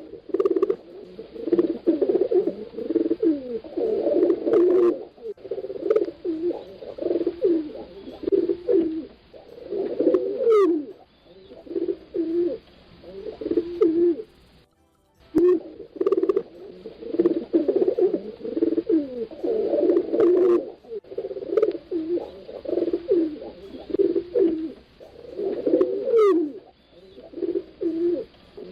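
Several pigeons cooing at once, their low throaty coos overlapping almost without pause, with a brief break about halfway through.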